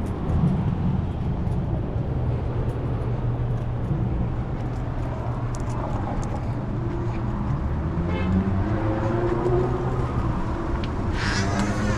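Steady low machine hum with scattered light clicks and knocks.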